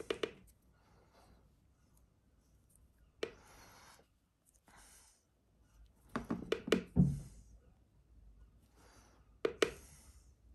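Handling noises of painting supplies on a table: a short rub about three seconds in, a cluster of light knocks and clicks around six to seven seconds, and one more knock near the end.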